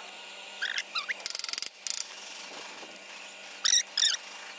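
Two short bursts of electric arc-welding crackle about a second and a half in, as tack welds are struck on stainless steel railing tube. Short high squeaky chirps come before and after them, the loudest two near the end.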